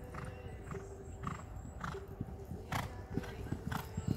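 A cantering horse on a sand arena: dull hoofbeats with a short puff of breath at about every half-second stride, growing louder in the second half as the horse comes closer.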